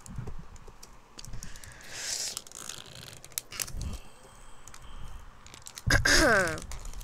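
Fingernails picking and scratching at tight plastic shrink wrap on a metal collector's tin: a string of small clicks and crinkles as the wrap resists coming off. A short vocal sound falling in pitch comes about six seconds in.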